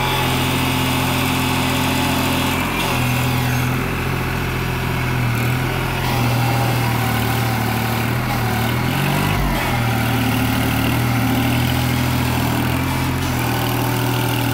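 Diesel tractor engine running steadily while working a front-end loader in soil, its pitch shifting now and then with a brief dip a little past the middle.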